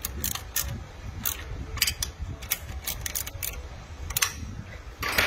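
Ratcheting wrench clicking in short, irregular runs while the swing-tensioner bolt is tightened to put tension on the supercharger belt, with a louder metal click near the end.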